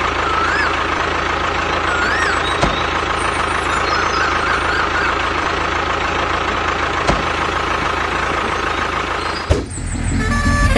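Tractor engine idling steadily, with a few sharp clicks over it. Near the end the engine sound breaks off and a run of short stepped tones starts.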